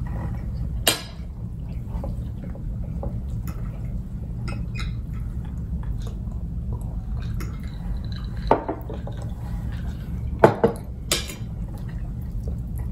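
Forks clinking and scraping on dinner plates as people eat, with a few sharp clinks scattered through, the loudest about ten and a half seconds in. A steady low hum runs underneath.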